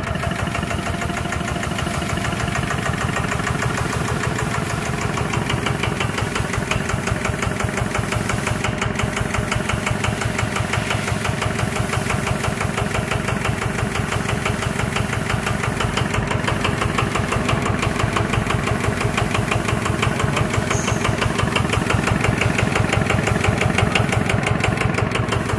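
Small single-cylinder horizontal diesel engine running steadily with an even, fast diesel knock, a little louder near the end.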